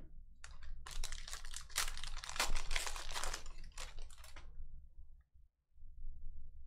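Foil wrapper of a Panini Donruss basketball hobby pack being torn open and crinkled as the cards are pulled out. The rapid crackling runs for about four seconds, then stops.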